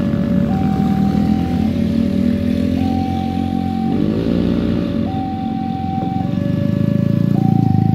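Railway level-crossing warning alarm sounding, alternating between a higher and a lower tone about once a second: the signal that a train is approaching and the barriers are closing. Motorcycles and small cars pass close by over the crossing, their engines the loudest sound, with one going past about four seconds in and the loudest near the end.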